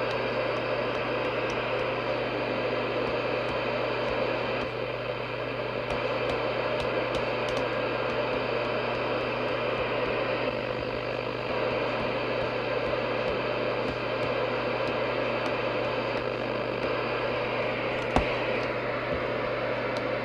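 Steady receiver hiss from the speaker of a Midland 77-810 Ready Rescue 27/81 MHz FM CB radio while its channels are stepped through with no signal on them, with a single sharp click near the end.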